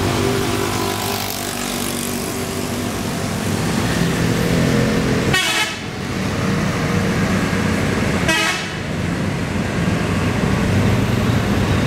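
Telolet horn of an Indonesian bus sounding its multi-tone tooting tune over the bus's running diesel engine.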